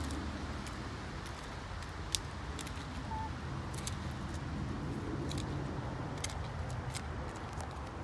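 Hens pecking and tearing at cabbage leaves: irregular sharp clicks of beaks over a steady low rumble.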